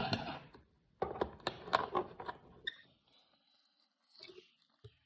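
Toy packaging being handled as a small figure is worked free: a string of sharp crackles and clicks in the first half, then a pause and a couple of faint small clicks near the end.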